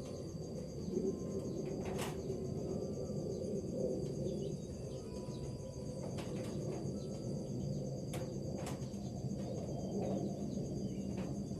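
Steady high, pulsing trill of an insect chorus, crickets, over a low steady rush, with a few sharp clicks scattered through.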